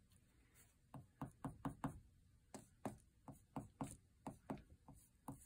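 Eraser rubbing back and forth on drawing paper, removing guidelines from an inked drawing: faint quick strokes, about four a second, starting about a second in.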